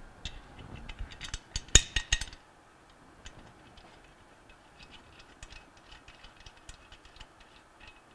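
Small metal clicks and clinks of bolts being fitted and finger-tightened into a Bell & Gossett Series 80 pump's motor bracket. A busy run of clicks comes in the first two seconds, the sharpest near the end of that run, followed by faint scattered ticks.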